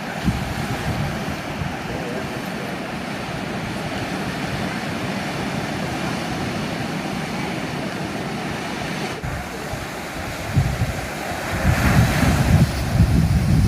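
Sea waves washing steadily on the shore. Wind buffets the microphone in low rumbling gusts, growing stronger for the last few seconds.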